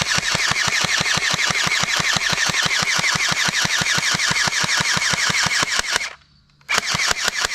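Toy M41 rifle's electronic machine-gun sound effect: a fast, steady string of shots, about nine a second, each with a short falling chirp. It stops for about half a second near the end, then starts again.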